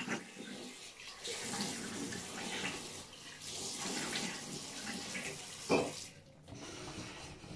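Tap water running into a bathroom sink while the face is rinsed with handfuls of water, in uneven splashes; the water noise drops away about six seconds in.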